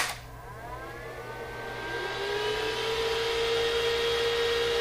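A click as the power comes on, then the enclosure's cooling fan spins up, its whine rising in pitch for about two seconds before settling into a steady whir.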